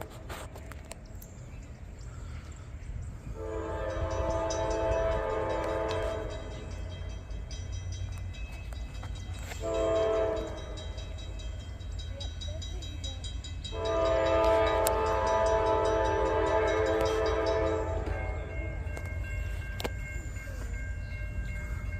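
Norfolk Southern freight locomotive's multi-chime air horn blowing for a grade crossing: a long blast, a short one, then a long one, over a steady low rumble.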